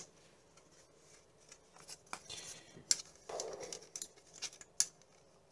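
Light clicks and brief rustling from plastic model-kit parts and sprues being handled and set down.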